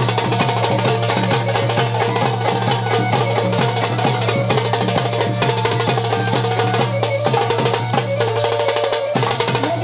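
Live Indian folk accompaniment with no singing: a harmonium holding steady notes over a fast, driving drum rhythm.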